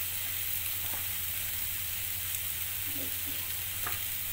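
Masala gravy with eggs sizzling steadily in a kadai on a gas stove, over a low steady hum.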